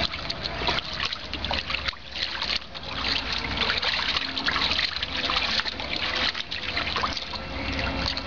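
Water splashing and sloshing as a dog wades and paws around in a shallow plastic kiddie pool, with many irregular splashes.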